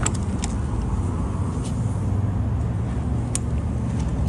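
Steady low rumble of a running vehicle engine, with a few sharp clicks and taps from a plastic additive bottle and a fuel pump nozzle being handled.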